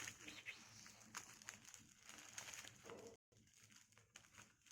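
Near silence, with faint crinkling of product packaging being handled and a few light clicks.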